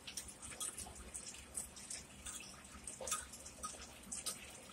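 Close-miked mouth chewing a forkful of salad greens with lips closed: irregular soft clicks and crackles, several a second.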